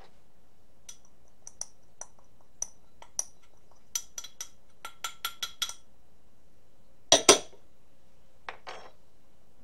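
Small ceramic bowl tapped again and again against a stainless-steel mixing bowl to knock out almond flour: a string of sharp clinks with a metallic ring, coming faster about four to five seconds in. Two louder knocks follow about seven seconds in, and two fainter ones shortly after.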